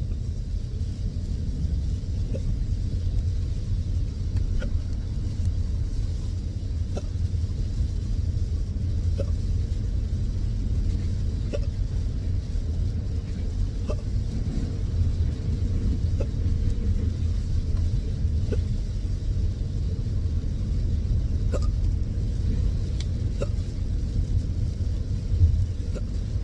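Intractable hiccups: a short, sharp hiccup about every two seconds, over a steady low rumble that is louder than the hiccups.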